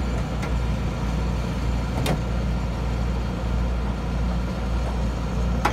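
Sharp clunks about two seconds in and again near the end, which fit the Cessna 208 Caravan's inertial separator vanes being switched between normal and bypass, over a steady low machine hum.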